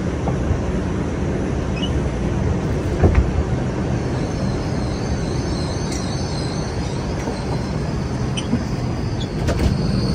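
New York City subway car rolling along with a steady low rumble of wheels and running gear. About halfway through, a faint high squeal of the wheels joins in, and there is a single knock about three seconds in.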